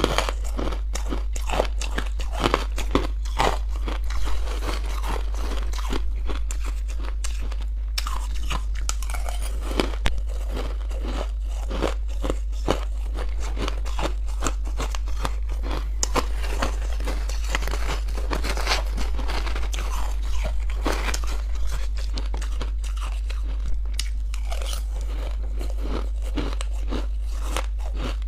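Close-up crunching and chewing of frozen ice chunks: a dense, continuous run of crisp cracks and crunches, over a steady low hum.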